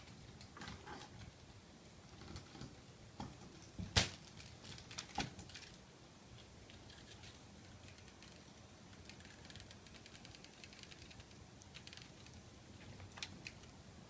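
Eight-week-old Ocicat kittens moving about, making scattered light taps and clicks, with a sharper click about four seconds in and another a second later.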